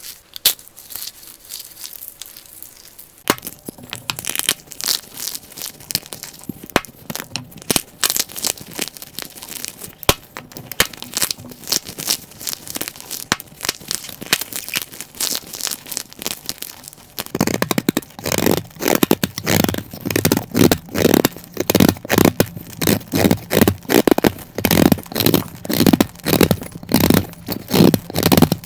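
Brittle, dry cubes crackling and crumbling as they are cut and crushed. There is a dense crackle at first; about two-thirds of the way in it turns into louder, even crunches, about two a second.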